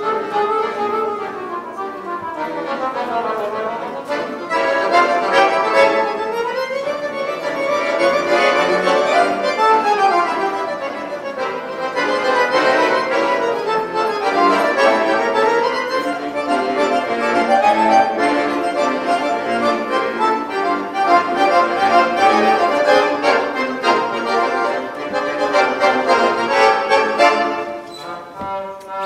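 Accordion duet: two accordions playing together, with fast runs of notes sweeping up and down, dropping softer just before the end.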